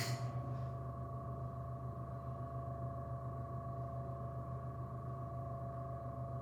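Steady electrical hum from a powered vending machine, a low drone with a few constant whining tones above it, unchanging throughout.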